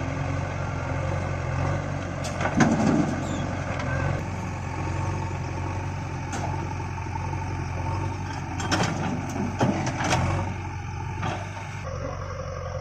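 Diesel engines of a backhoe loader and a tractor running steadily, with a few sharp clanks and knocks: one loud one about two and a half seconds in and a cluster around nine to ten seconds in.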